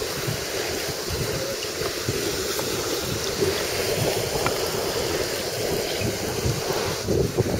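Wind buffeting the microphone over steady surf: a continuous, even noise with no clear rhythm.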